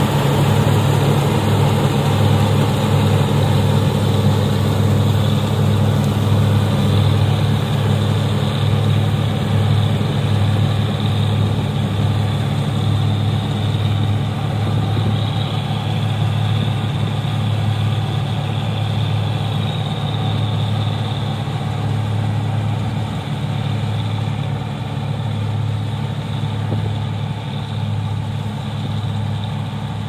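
Combine harvester running while cutting wheat: a steady engine and threshing drone that slowly fades as the machine moves away.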